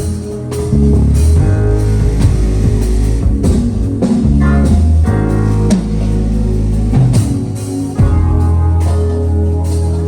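Live band instrumentation at a sound check: guitar playing over a drum kit, with heavy held low notes underneath.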